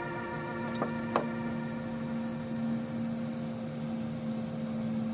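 Soft background music of long held synth-like notes, with two light clicks about a second in.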